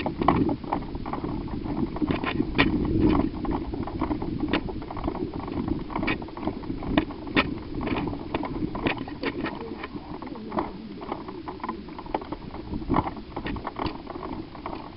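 Footsteps and the knocks and rattles of carried gear as people walk, irregular clicks over a steady low rumble of handling noise on the carried camera.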